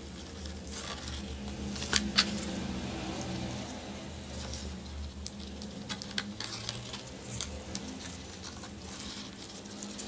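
Ribbon being threaded through the eyelets of a chart-paper carry bag and knotted: soft rustling of paper and ribbon with scattered small clicks, two sharper ticks about two seconds in.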